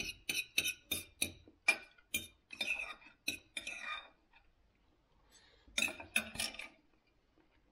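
Knife and fork clinking and scraping on a dinner plate while food is cut: a quick run of about a dozen clinks and short scrapes, a pause, then a few more just after the middle.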